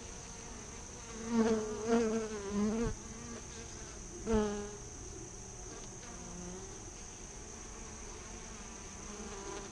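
Bees buzzing in a steady hum that swells louder and bends in pitch as bees pass close, a few times in the first five seconds.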